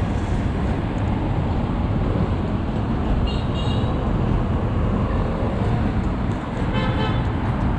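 Steady rumble of wind on the microphone mixed with road traffic noise, with brief high chirps twice, about three seconds in and again near the end.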